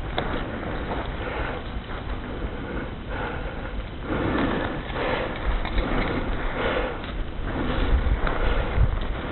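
Breath-like swells of noise with rustling, over a steady wind rumble on the microphone.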